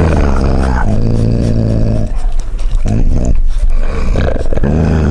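A dog growling while eating: a series of low, drawn-out growls about a second each with short breaks between them, with a few sharp clicks near the middle.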